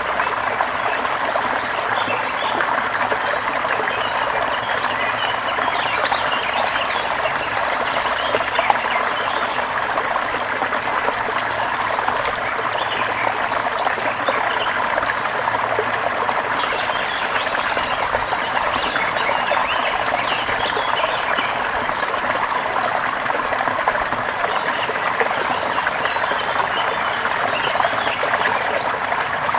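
Water in a forest stream flowing and splashing steadily.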